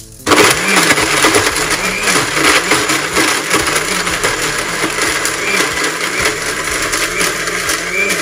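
SATO electric blender grinding raw carp flesh into a paste in its small grinder cup, the motor starting abruptly a moment in and then running loud and steady.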